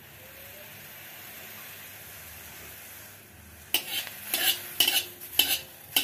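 A steady faint hiss from a hot, empty aluminium wok, then, a little over halfway through, a spatula scraping across the wok's bottom in quick regular strokes about two a second, the wok ringing faintly with each stroke. The wok is being seasoned on the heat to make it non-stick.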